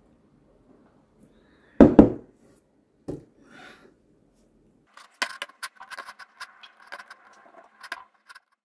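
A ceramic mug set down on a desk with two solid knocks, then a lighter knock. A few seconds later comes a run of quick light clicks as a computer mouse is worked.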